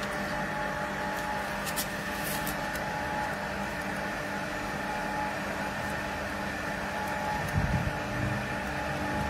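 A LEO three-impeller multistage electric water pump runs with a steady hum. It is running with no water in it, switched on by its automatic pressure controller. There is a brief low thump about seven and a half seconds in.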